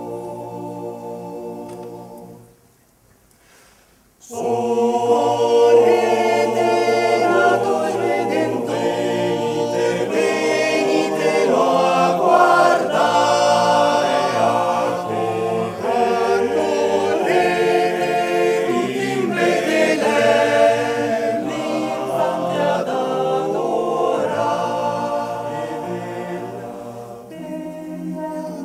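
Male choir singing a cappella in several-part harmony, with no instruments. A phrase ends about two seconds in, followed by a short near-silent pause before the full choir comes back in loudly.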